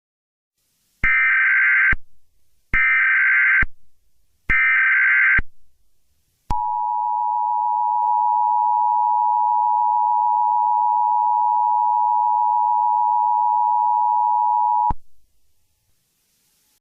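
Emergency Alert System tones opening a severe thunderstorm warning: three short bursts of SAME header data, each a buzzy screech just under a second long, then the two-tone attention signal, a steady dual tone held for about eight seconds that cuts off sharply.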